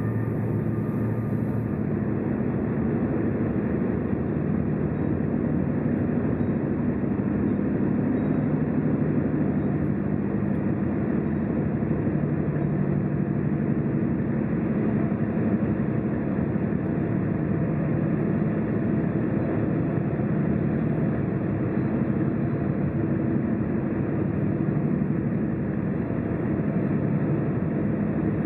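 Car driving at motorway speed: a steady mix of engine and tyre/road noise with no sudden events.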